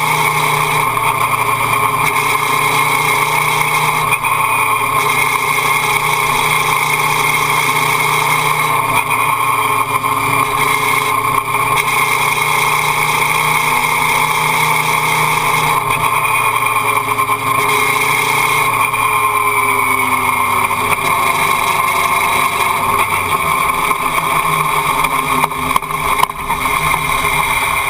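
Motorcycle engine running at steady revs under constant throttle, heard from a camera mounted on the bike, with wind and road noise; the engine note eases slightly near the end.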